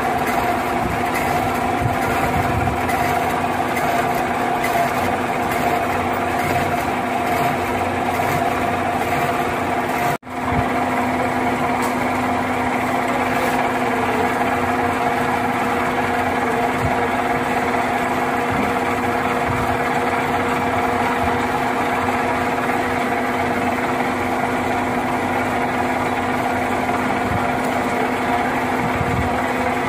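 Metal lathe running steadily as it turns down a welded steel shaft, a constant mechanical hum with a couple of held tones. The sound cuts out for an instant about ten seconds in.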